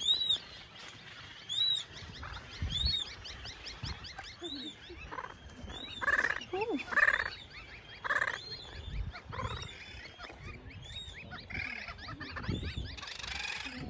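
Nesting seabirds calling in a colony: many high, arching calls repeating over and over, overlapping, with a few louder, harsher calls about midway through.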